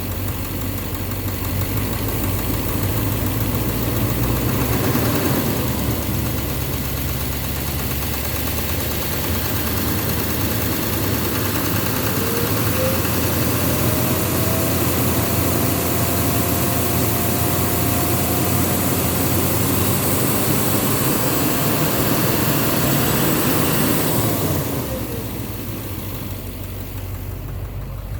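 Duramax LMM 6.6-litre V8 turbo-diesel running: its revs rise a few seconds in and hold for about twenty seconds, with a turbo whistle climbing and then holding steady through the middle, before dropping back to idle near the end.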